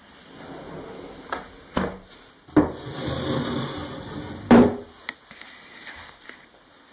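Wooden sliding window sash, a hanok lattice window in a double-window frame, being slid along its track. There are a couple of light knocks, then a rubbing slide of about two seconds that ends in a loud knock against the frame.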